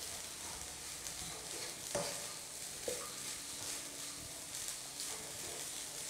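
Rice sizzling in a hot pan as a wooden spatula stirs and turns it, with two sharper clacks of the spatula against the pan about two and three seconds in.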